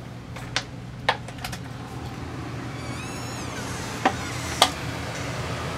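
A few sharp knocks and clanks, irregularly spaced, with a short wavering high squeak in the middle, over a steady low hum.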